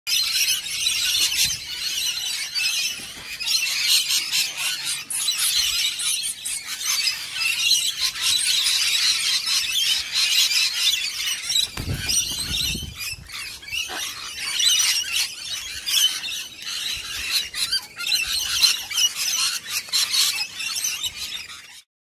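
Sulphur-crested cockatoos screeching almost without a break, harsh and loud. About halfway through, a burst of wingbeats close by as one flies in.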